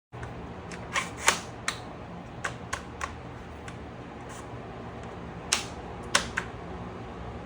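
Sharp, irregular clicks and clacks of small gun parts being handled and fitted on a VFC MP7 airsoft gun, over a steady low hum. Several come close together in the first few seconds and a few more come later.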